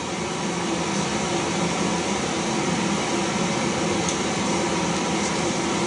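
Steady background hiss with a faint hum, heard through a TV speaker and picked up again by a camcorder.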